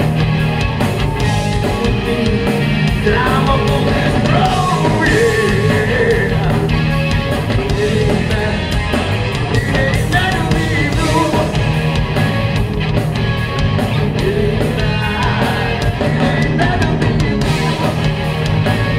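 Live rock band playing at full volume: electric guitar, bass guitar and drums, with a man singing over them.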